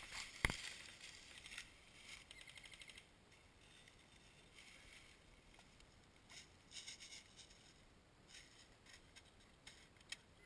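Mostly quiet. A sharp knock comes about half a second in, then a fast run of evenly spaced clicks about two seconds in: an airsoft gun firing a burst. Faint rustling of dry leaves follows.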